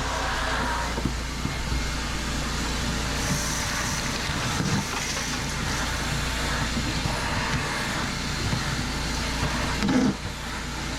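Hart 6-gallon stainless steel wet/dry shop vac running steadily while vacuuming. A single knock about ten seconds in.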